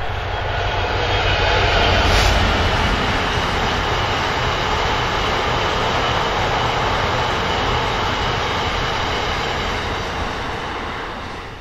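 A freight train of loaded sand hopper wagons behind a Class 66 diesel locomotive rolls past with a steady roar of wheels on rail. It is loudest about two seconds in, where a single sharp click is heard, then dies away near the end as the last wagons go by.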